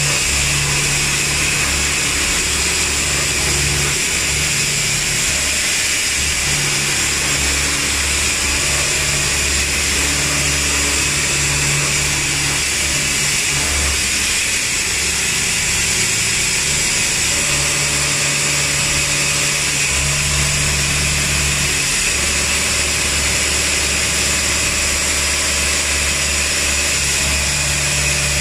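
CNC vertical machining centre milling a melamine mug mould: the spindle runs steadily with a constant high hiss and whine of the cutter, over a low hum that starts and stops every second or two as the cutter moves around the cup-shaped cores.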